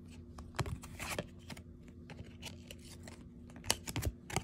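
Trading cards being handled and shuffled by hand: scattered light rustles and flicks of card stock, with a few sharper clicks near the end.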